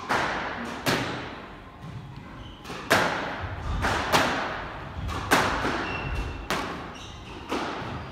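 Squash ball hit back and forth in a rally: sharp cracks of racket on ball and ball on the walls, one every second or so, each ringing on briefly in the enclosed court.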